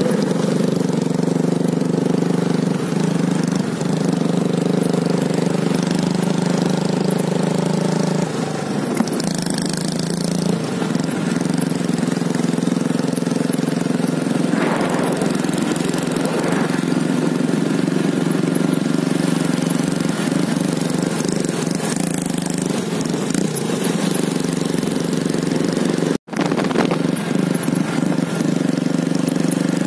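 Motorcycle engine running while riding, a steady drone whose pitch pattern shifts about eight seconds in and settles again later. The sound cuts out for a moment near the end.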